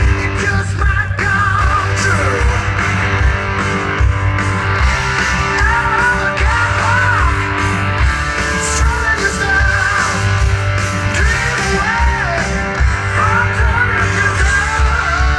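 Loud rock music over a festival stage sound system: electric guitar, bass and drums with a sung melody, at a steady beat.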